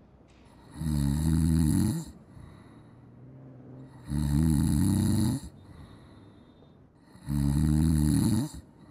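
A man snoring: three long snores about three seconds apart, each lasting just over a second.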